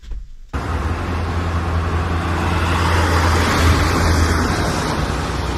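Ford E350 camper van being driven: steady engine, road and wind noise with a strong low rumble. It starts abruptly about half a second in.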